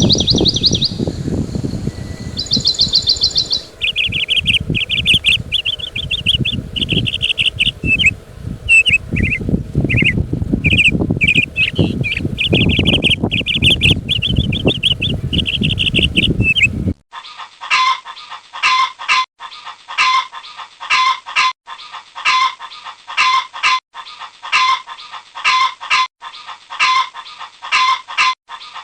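Small birds chirping in quick trills over a low rustling noise; about 17 seconds in it cuts abruptly to a chicken's evenly repeated clucking calls, one or two a second.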